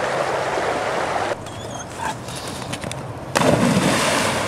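About three seconds in, a German Shepherd puppy plunges into a river with a sudden loud splash, followed by churning, rushing water as he drives through it.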